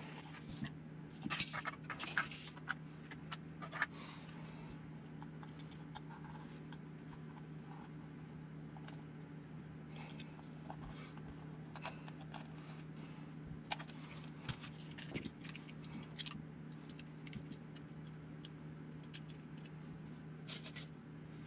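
Light metallic clicks and taps of small hand tools, screws and parts being handled while the chassis plate of an RC buggy is unscrewed with a hex driver. The clicks come in scattered clusters over a steady low hum.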